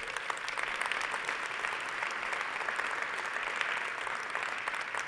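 Audience applauding: many hands clapping together, holding steady.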